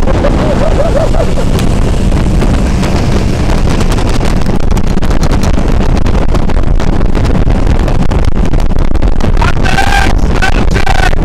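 Sea-Doo Speedster 200 twin-engine jet boat running underway, a steady loud drone of engines and jet drive with wind on the microphone.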